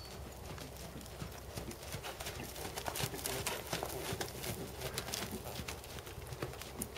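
Hoofbeats of a black Percheron/Thoroughbred gelding trotting on sand arena footing: a steady run of muffled thuds that grows louder as the horse passes close, about three to four seconds in, then fades.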